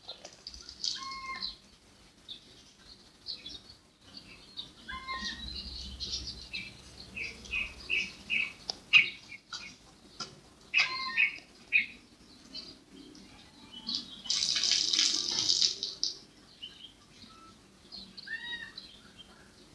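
Background birds chirping: scattered short high calls, a run of evenly repeated chirps about a third of the way in, and a dense high chattering burst lasting about a second and a half about three-quarters through.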